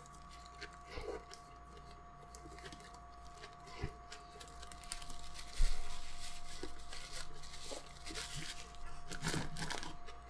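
Quiet eating sounds: chewing and small crunches of fried fast food, then a thump about five and a half seconds in followed by paper wrapper crinkling and tearing. A faint steady hum runs underneath.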